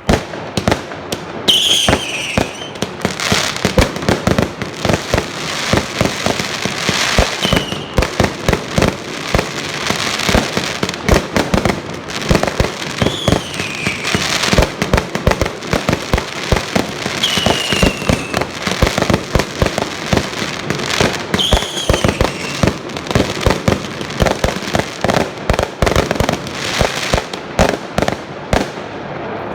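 Many fireworks going off at once: a dense, unbroken run of bangs and pops. Five short whistles cut through it, each falling in pitch.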